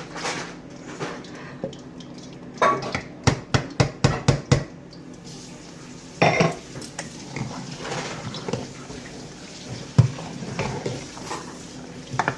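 Metal cooking utensils clattering and knocking against a pot, with a quick run of about eight sharp knocks a few seconds in and a few single knocks later.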